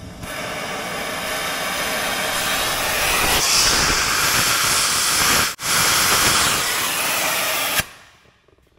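Oxy-fuel torch flame hissing steadily as it heats a seized track-roller bolt head red-hot to free it. The hiss drops out for an instant a little past halfway and cuts off near the end.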